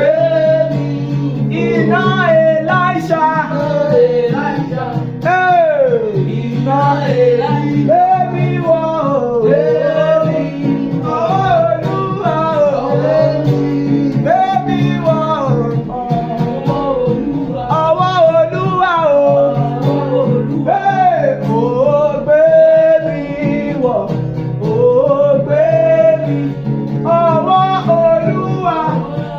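A man singing a gospel song in long, gliding, ornamented melodic lines over steady instrumental accompaniment.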